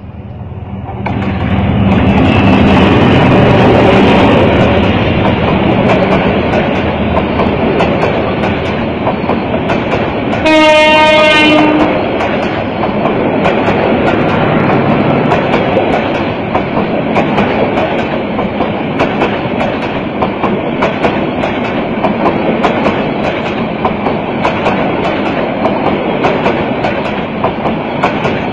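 Diesel-hauled express train passing at speed. The locomotive is loudest in the first few seconds as it goes by, and one horn blast of just over a second comes about ten seconds in. After that, a long run of wheel clicks over the rail joints as the coaches pass.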